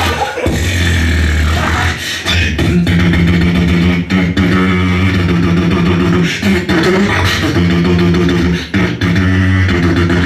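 Beatboxing battle performance through a PA system. A deep bass line comes first; from about three seconds in, a held hummed note repeats in phrases, cut through by sharp kick and snare clicks.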